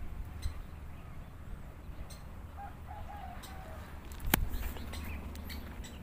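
Adult woodpecker giving scattered sharp alarm notes, one much louder about four seconds in: the parent scolding, agitated at its nest being disturbed and its chick handled.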